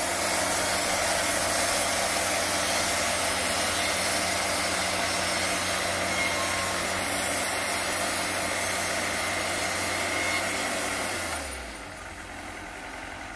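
Wood-Mizer portable band sawmill cutting through a larch log: the blade running through the wood over the engine working under load, a steady noise. About eleven seconds in the cut ends and the sound drops, the engine falling back to a quieter idle.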